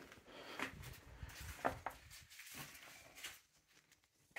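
Faint footsteps: a few soft scuffs and knocks about a second apart.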